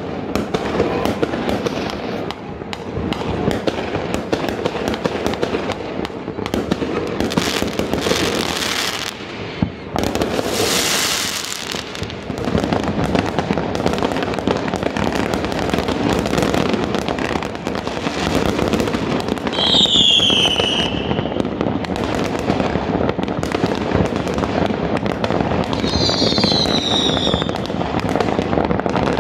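Many fireworks going off at once across a city: a continuous crackle of bangs and pops, loud throughout. Hissing bursts come around eight and eleven seconds in, and two falling whistles about twenty and twenty-six seconds in.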